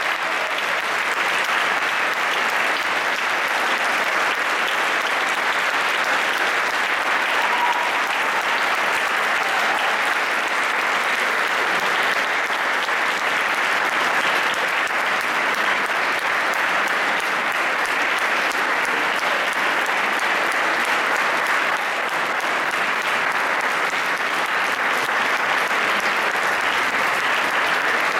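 Audience applauding, a long, steady round of clapping at an even level.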